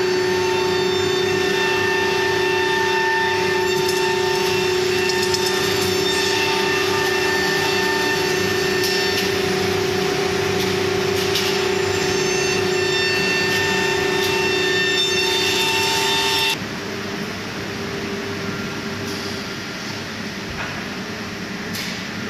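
ATC CNC router running, its spindle giving a steady high whine over the noise of the cutting. About sixteen seconds in the cutting noise drops away suddenly, leaving a quieter steady machine hum.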